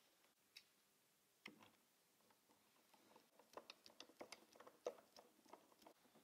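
Faint, scattered clicks and taps of hand work on a car hardtop, as a hand tool is pushed along a rubber seal in the roof's edge. The clicks come more often in the second half.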